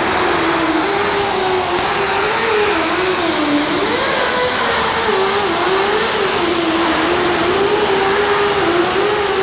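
A handheld power tool running continuously over a loud hiss, its motor pitch wavering up and down.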